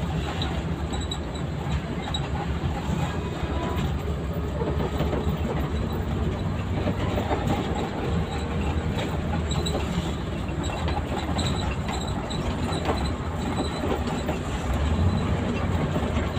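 Cabin noise of an intercity bus on the move: steady engine rumble and road noise, with a constant light rattling of the interior.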